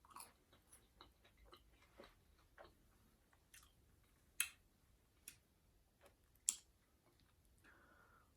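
Close-up chewing of fried fast food, with wet mouth clicks and smacks scattered through it; two sharper smacks stand out, about four and a half and six and a half seconds in.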